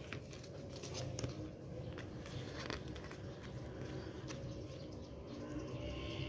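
Glossy photobook pages being handled and turned, with soft paper rustles and a few light taps and flicks.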